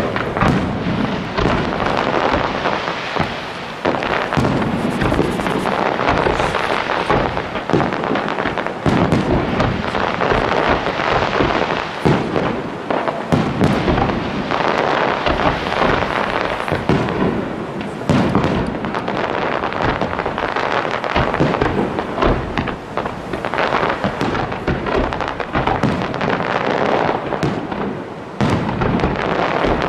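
Fireworks display: a dense, continuous barrage of aerial shells bursting, with many loud bangs overlapping throughout.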